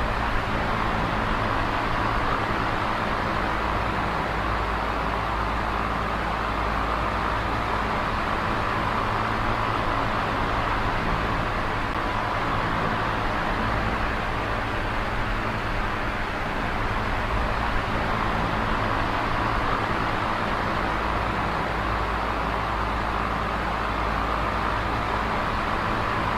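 Small oscillating electric fan running: a steady rush of air over a low motor hum.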